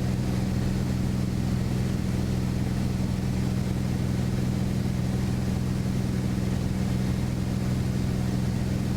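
Steady drone of a Beechcraft Bonanza's piston engine and propeller in level cruise, heard from inside the cabin, with an even low hum that does not change.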